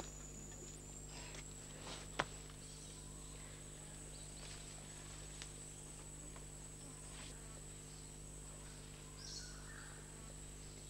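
Faint rainforest insect drone: a thin, steady high buzz over a low background hum, with a single sharp click about two seconds in.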